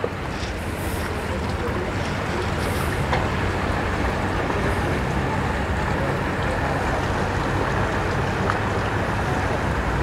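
Boat engine running at low speed with a steady low rumble that slowly grows louder, mixed with wind and water noise.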